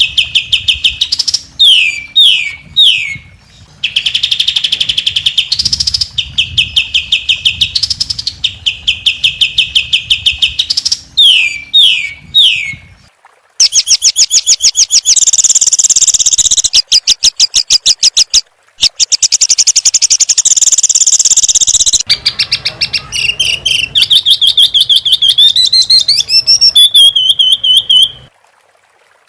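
Songbird training recording (masteran) of rapid rattling volleys of repeated sharp notes, broken twice by quick downward-slurred whistles. These give way to higher, faster trills and then a rising run of notes that breaks off abruptly.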